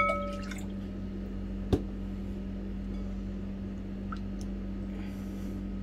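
A drinking glass clinks once against a glass mixing bowl, ringing briefly, as water is poured into a yogurt marinade. About two seconds in there is a single knock, then faint ticks of a silicone spatula stirring the marinade, all over a steady low hum.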